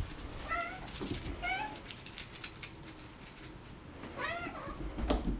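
Domestic cat meowing three times in short calls, two close together near the start and one more about four seconds in, with a few sharp knocks near the end.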